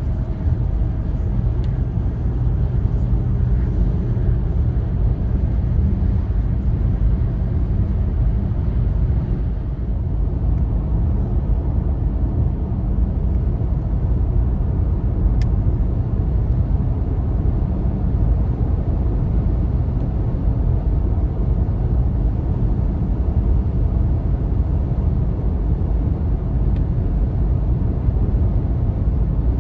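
Steady low road rumble heard inside a car's cabin while driving at motorway speed: tyre and engine noise.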